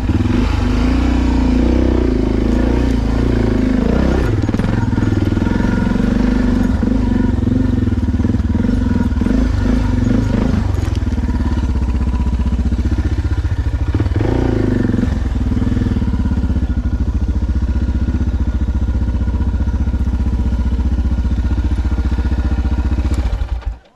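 Off-road motorcycle engine running at low revs as the bike picks its way up a rutted, rocky trail, the revs rising and falling several times.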